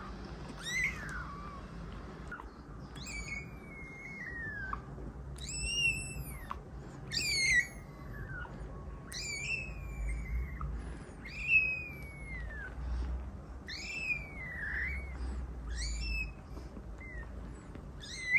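A very young kitten mewing: about a dozen high, thin cries, each a second or less, rising then falling in pitch, spaced a second or two apart.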